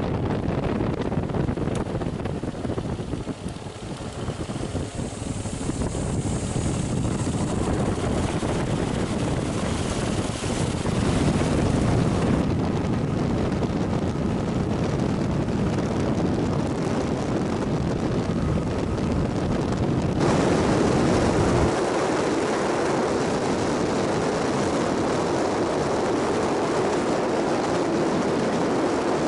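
Kawasaki KLR650 single-cylinder motorcycle riding on a dirt road, its engine running under a steady rush of wind over the bike-mounted camera's microphone. The sound changes abruptly about twenty seconds in.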